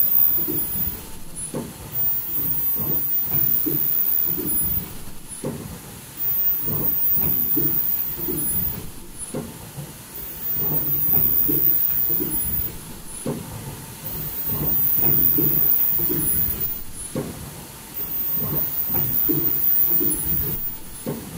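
Automatic N95 folding mask production line running: rapid mechanical clatter and hiss that surges and eases in a repeating cycle of about four seconds, with a very high-pitched whine switching on and off in step.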